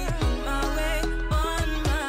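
Background music: a melody over a steady drum beat.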